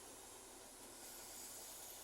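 Near silence: a faint, steady hiss of outdoor background with no distinct sound.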